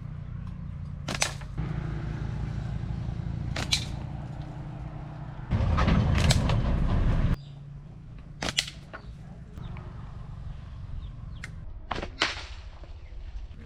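Sharp cracks or impacts, one every two to three seconds and two in quick succession near the end, over a low steady hum, with a louder stretch of noise lasting about two seconds midway.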